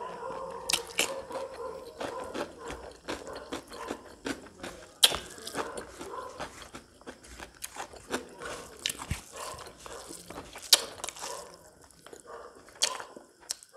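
Close-miked eating sounds: a man chewing and crunching cucumber and pork with rice, with frequent sharp wet smacks and clicks of the mouth and fingers.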